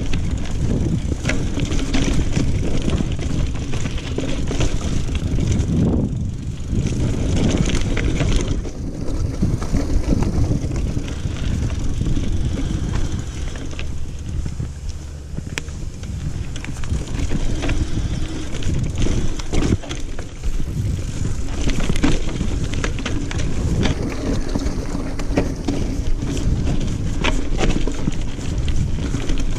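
Single-speed Specialized Crave SL hardtail mountain bike riding over rocky dirt singletrack: tyres crunching on dirt and stones, with frequent knocks and rattles as it hits rocks and roots, over a steady low rumble of wind on the microphone.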